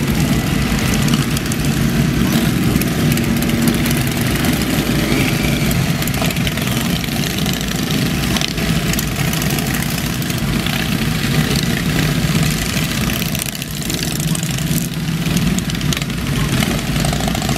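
Many motorcycle engines running together, a pack of sports bikes and cruisers idling and moving off slowly as a group. The deep, steady engine sound dips briefly about two thirds of the way through.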